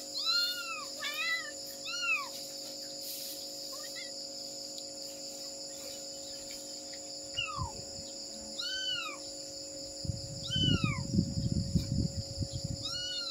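Domestic cat meowing repeatedly, a mother cat calling for her kitten: a quick run of short meows at the start, then single meows every second or two. A low rumbling noise about ten seconds in is the loudest part.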